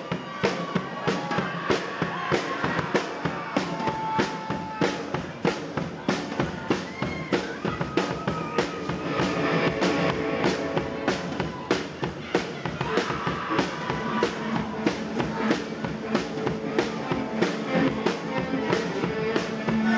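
Rock band playing live, its drum kit keeping a steady, hard-hit beat of about two strikes a second under the other instruments.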